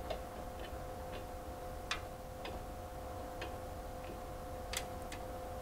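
Light, sharp clicks at uneven intervals from the adjustment dial of an ultra short throw projector wall mount being turned by hand, over a steady two-tone hum.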